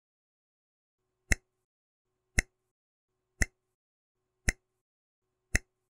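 Countdown timer ticks: five short, sharp, identical clicks about one second apart, beginning about a second in, with nothing else heard between them.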